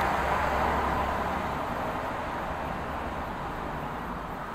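City street traffic noise: a steady hiss of cars on the road, with a low engine hum in the first second or so, easing off gradually.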